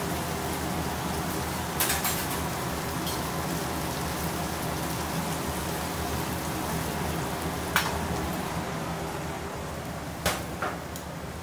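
Kitchen sounds: a steady hiss and hum with a few sharp knocks of cookware, the loudest about eight seconds in and two close together near the end.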